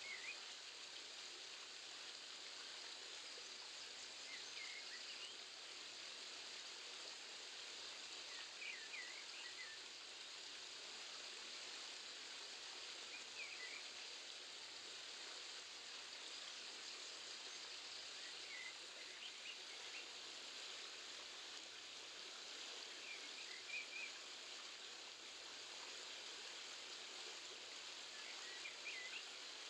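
Stream water rushing steadily, with a small bird's short chirps about every four to five seconds.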